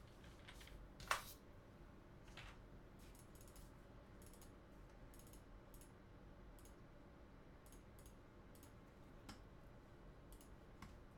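Faint, scattered clicks of a computer keyboard and mouse, with one sharper, louder click about a second in.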